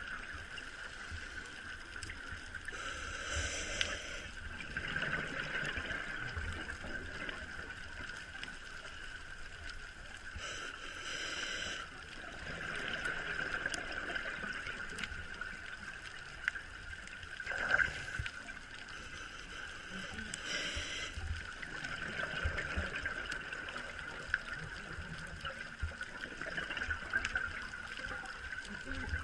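Underwater audio from a diver's camera: a steady muffled hiss with a constant tone. Three times, several seconds apart, comes a rush of exhaled scuba-regulator bubbles, and about two thirds of the way through there is a single sharp knock.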